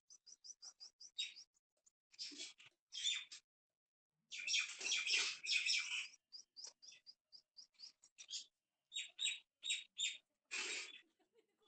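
Small monkeys squeaking and chirping: quick series of short, high-pitched squeaks, with a louder, harsher squealing stretch from about four to six seconds in.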